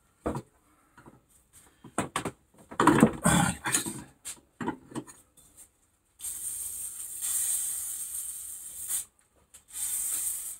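Irregular metal knocks and scraping as the threaded collar of a coil-over shock absorber clamped in a vise is worked. Then an aerosol lubricant spray hisses, one long burst of about three seconds and a shorter one near the end.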